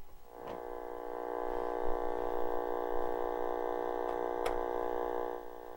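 Steady electrical buzz from a small portable TV's speaker, a hum rich in overtones, with a sharp click about half a second in and another near the end.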